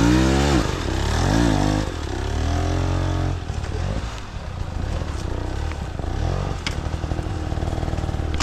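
Enduro motorcycle engine revving up and down a few times, then running at lower revs, rougher and a little quieter, from about three and a half seconds in.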